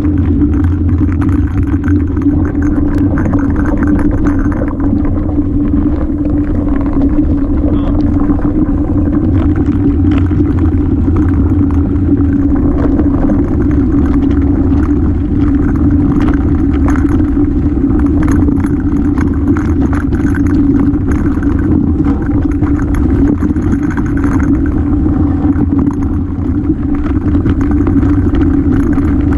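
Bike ridden down a rocky dirt trail, heard from a mounted camera: a steady loud rumble with clattering and rattling as the tyres run over loose rocks.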